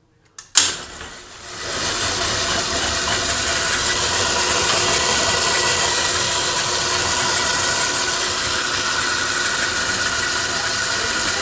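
A click and a sharp knock as a LiftMaster jackshaft garage door opener starts, then its motor running steadily with a whir while the door travels.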